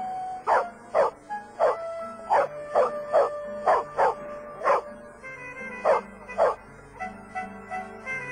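A dog barking repeatedly, about a dozen short barks in the first six and a half seconds, then stopping, over background music with held notes.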